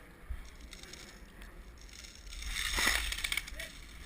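Rustling and crunching of movement and gear close to the microphone over a low wind rumble, louder for under a second about three seconds in.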